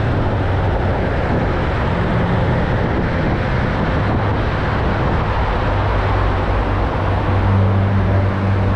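Car traffic and road noise in a road tunnel, heard from a moving bicycle: a steady noise with a low hum that grows stronger in the second half as cars pass close by.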